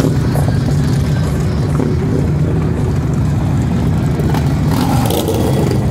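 A line of motorcycles riding slowly past one after another, their engines running in a steady low rumble.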